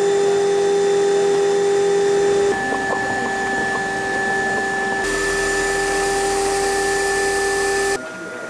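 Steam leaking from around the cylinders of ΔΚ8.001, an 1891 Cail rack steam locomotive standing in steam: a steady pitched whistle over a hiss. The pitch and loudness change suddenly about two and a half and five seconds in, and the sound drops to a quieter level near the end.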